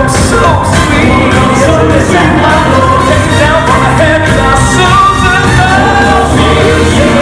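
Male Southern gospel vocal quartet singing live through handheld microphones, with piano accompaniment.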